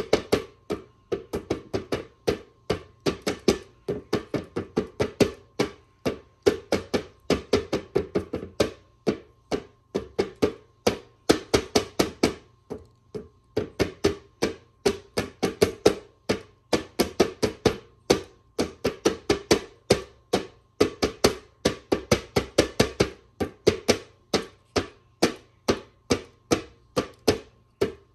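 Homemade drum with a brown paper-bag drumhead, beaten with a wooden spoon in a steady run of strikes, about three a second, with a few short breaks.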